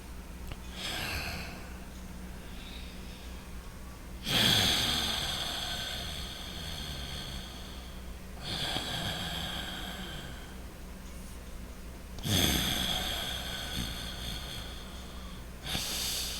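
Loud, deliberate breathing in and out through the nose: one faint breath, then about four loud ones, each starting sharply and trailing off over a few seconds, with short pauses between them.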